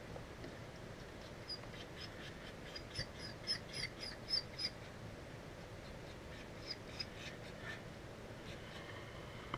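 Animal chirping: a quick run of about a dozen short, high chirps over three seconds, then two more near the end, over faint light tapping.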